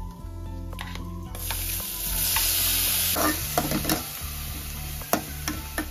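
Chopped onion, garlic, ginger and green chilli dropping into hot oil in a kadhai, starting to sizzle about a second and a half in. The sizzle is joined by the metal slotted spoon scraping and knocking against the pan as the mix is stirred.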